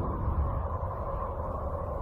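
Sonified spacecraft space-audio recording (radio or plasma-wave data turned into sound): a steady, noisy low rumble with a hissing band held around one pitch.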